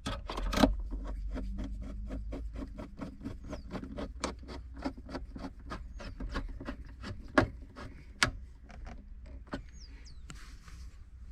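Screws being fitted by hand into the radio mounting points in a car dashboard: a fast run of small clicks, about three to five a second, with a few louder knocks.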